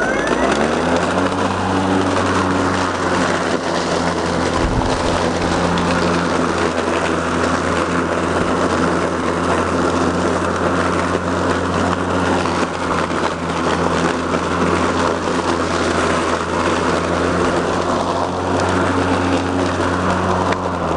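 EGO LM2130 56-volt cordless electric lawn mower running at full speed with a steady, even hum from its blade motor. It is pushed through a deep layer of dry fallen leaves, mulching them, which adds a rushing, crunching noise over the hum.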